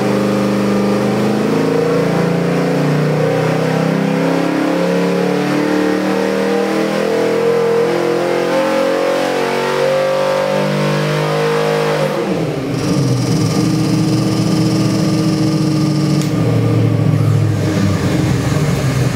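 Ford 347 cubic-inch stroker small-block V8, built on a 302 block, running a wide-open-throttle dynamometer pull with revs climbing toward about 5,800 rpm. About twelve seconds in the throttle shuts and the revs drop sharply, and the engine carries on running at a lower speed.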